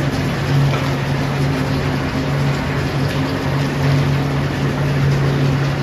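Steady, loud mechanical drone with a continuous low hum from a foundry's large drum-shaped melting furnace running while molten bell bronze is tapped from it into a ladle.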